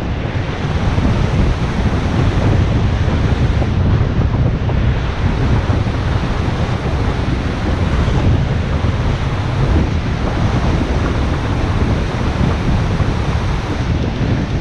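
Wind buffeting a GoPro's microphone as a steady low rumble while riding a bicycle along the shore, with surf breaking on the beach beneath it.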